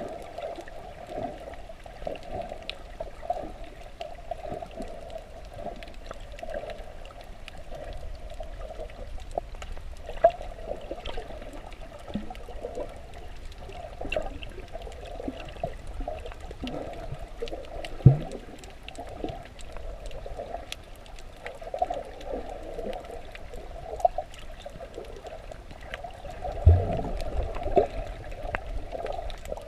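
Muffled water sloshing and gurgling heard underwater, with one sharp low thump just past halfway and a louder cluster of low thumps near the end.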